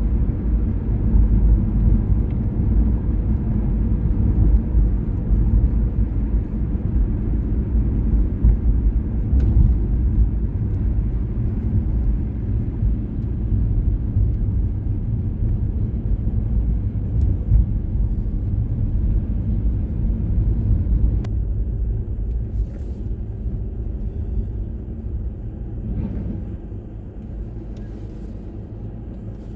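Steady low rumble of a car on the move, easing off toward the end.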